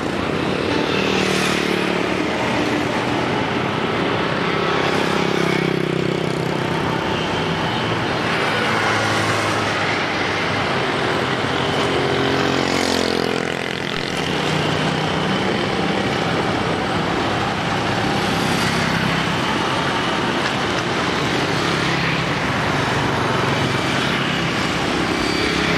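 Road traffic: container lorries and motorbikes driving past, with a steady engine drone that swells several times as vehicles go by.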